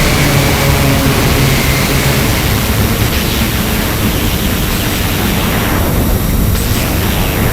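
Industrial noise drone from a live ritual-industrial performance: a dense, loud wall of hissing noise over a low rumbling drone. A thin high tone fades out about two seconds in.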